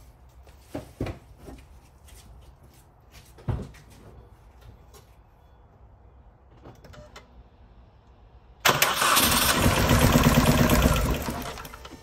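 A 2001 Mini Cooper R50's 1.6-litre four-cylinder petrol engine is cranked on the starter and started, loud and evenly pulsing for about three seconds from about nine seconds in. The engine has a misfire, traced to cylinder one, which has no compression and gets no injector pulse. Before the start there are a few faint clicks and a single knock.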